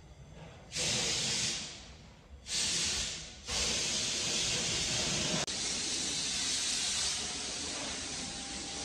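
A loud, steady hiss of noise that comes in two short bursts, then runs on without a break from about three and a half seconds in.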